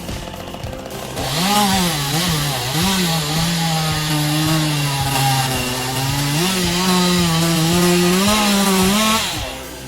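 Two-stroke chainsaw engine starting up about a second in and revving up and down a few times. It then runs at steady high revs, climbs a little higher, and drops off near the end.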